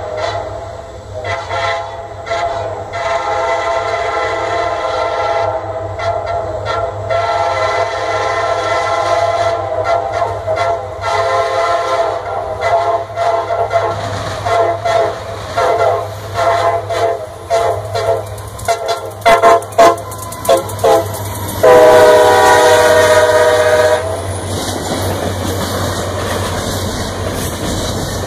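Nathan K5LA five-chime air horn on a CSX SD60I locomotive played in a long run of choppy short blasts and brief holds, then one long, very loud blast of about two seconds beginning around 22 seconds in. After the horn cuts off, the steady rumble and clickety-clack of the passing freight train.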